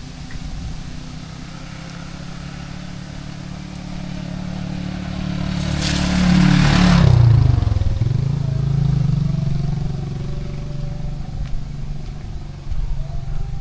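A motor vehicle passing close by: its engine gets louder and rises in pitch, goes by about six to seven seconds in with a short hiss of tyres on the wet road, then drops in pitch as it moves away.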